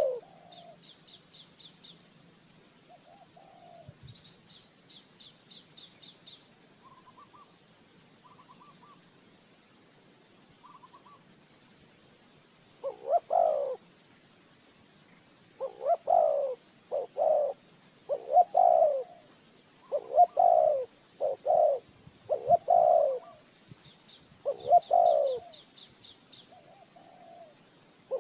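Spotted dove cooing: loud, repeated low coo phrases starting a little before halfway, after a quiet stretch with only a few faint calls. Faint high trills from a small bird come early on and near the end.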